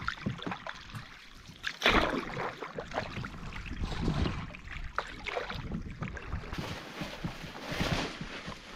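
Canoe paddle strokes in lake water, a splash and drip about every two seconds.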